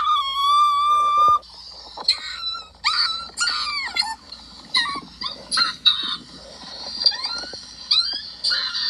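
High-pitched, squeaky cartoon-style cries: a held high note for about a second and a half, then a string of short yelps that bend up and down in pitch, about two a second.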